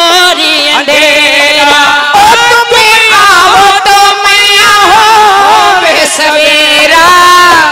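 Devotional Haryanvi ragni singing to the mother goddess Sherawali through a stage PA: a singer's voice holding long notes that waver and bend in pitch, over musical accompaniment.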